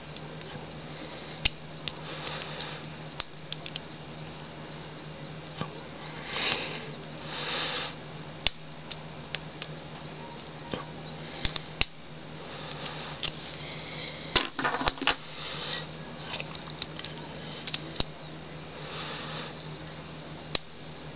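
Lock pick and tension wrench working the spool pins of a cheap brass padlock: scattered small metallic clicks and ticks with short bouts of scraping as the pins are set, while the lock sits in a false set.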